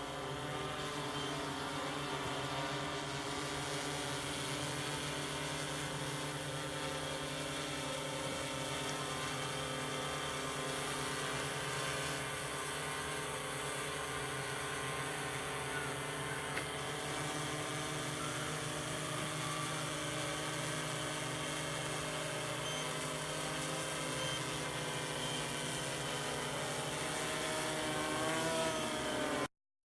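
Yuneec Typhoon Q500 4K quadcopter's motors and propellers running in a hover: a steady whine made of several tones at once. Near the end it gets a little louder and the pitch shifts, then it cuts off suddenly.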